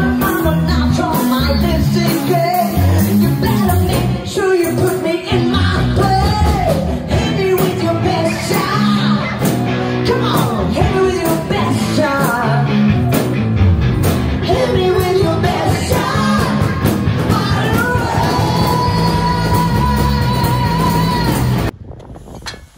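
Live band playing a song: vocals over drums and guitars. The music cuts off suddenly about a second before the end.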